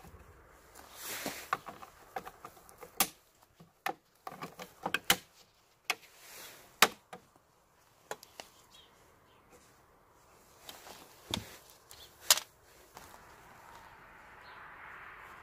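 Sharp plastic clicks and knocks, a dozen or so at uneven intervals, as a gloved hand pries at and opens the plastic access cover in the boot side trim behind a car's tail light.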